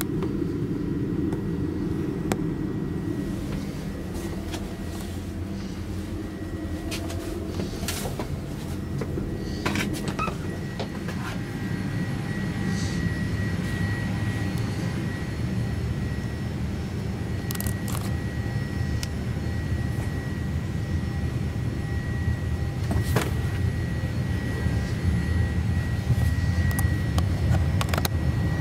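Steady low rumble and hum inside a parked Boeing 787-8 airliner cabin, with a faint steady whine and a few light clicks and knocks. The rumble grows louder near the end.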